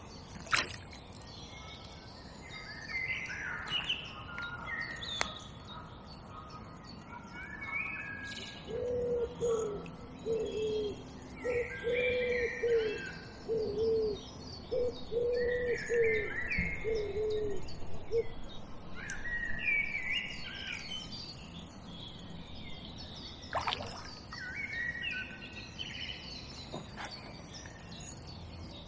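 Woodland birds singing and chirping, with a pigeon cooing a low repeated phrase from about eight to eighteen seconds in. Sharp clicks come about half a second in and again near twenty-four seconds.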